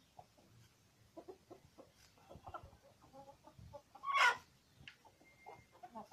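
Chickens clucking softly in short calls while foraging, with one louder, harsher squawk about four seconds in.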